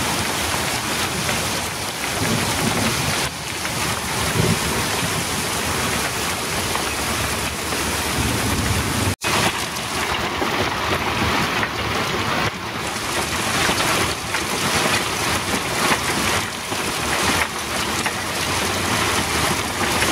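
Heavy rain pouring down steadily in a thunderstorm, a dense hiss. It cuts out for an instant about nine seconds in.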